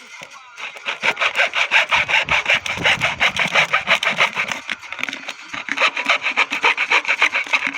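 Sandpaper rubbed over the wooden bow of a berimbau in quick, even back-and-forth strokes, sanding the wood smooth for finishing. The strokes start about half a second in and ease off briefly near the middle.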